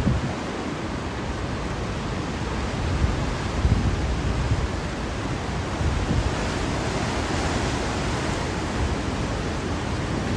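Hurricane wind blowing hard: a steady rush of noise, with gusts buffeting the microphone every few seconds.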